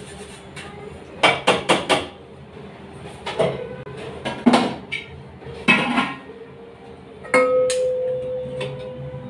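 Stainless-steel kitchen vessels and a container lid clattering: a quick run of four clinks, then several separate knocks, and near the end a metal strike that rings on as a steady tone.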